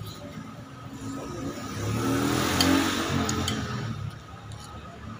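A motor vehicle passing by, its engine noise swelling to a peak about two and a half seconds in and then fading. A few light clinks of a metal fork and spoon on a plate come at the same time.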